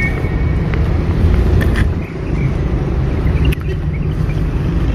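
Outdoor street noise: a steady low rumble of road traffic, with a few faint clicks.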